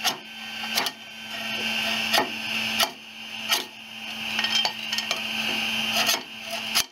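A metal spatula scrapes across an aluminium 3D-printer bed and taps under wood-filament prints to pop them loose. Several sharp ticks come between stretches of scraping, over a steady low hum.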